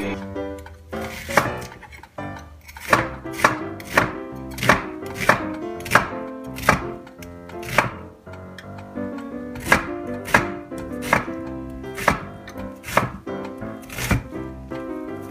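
Kitchen knife chopping an onion on a wooden cutting board: sharp knocks about two a second, with a short pause about halfway through.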